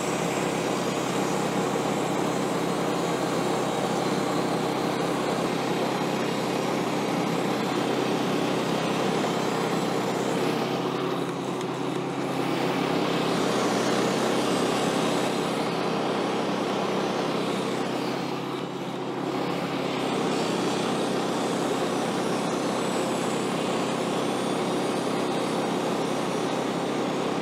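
Engine-driven portable band sawmill running steadily under load as its band blade makes the opening face cut through a large white oak log, the sound dipping briefly twice.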